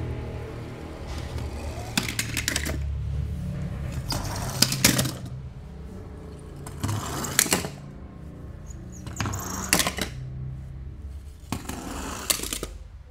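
Toy cars being unboxed by hand: about five short bursts of crackling, rustling packaging, with small clinks of the toy cars.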